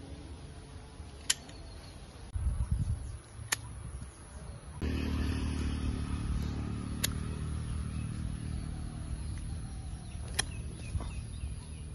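Pruning shears snipping sugar apple stems: four short, sharp clicks a few seconds apart. Under them runs a steady low rumble that begins about a third of the way in.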